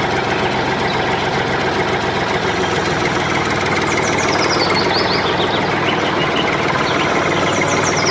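A motor running steadily without a break, starting suddenly at the outset.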